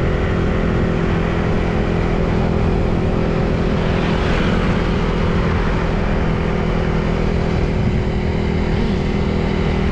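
Vehicle engine running at a steady, unchanging pitch under a constant rush of road and wind noise, as heard while travelling along a street.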